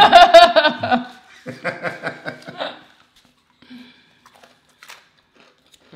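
A high-pitched vocal exclamation followed by a run of laughter, lasting about three seconds. After that it is mostly quiet, with a few faint clicks.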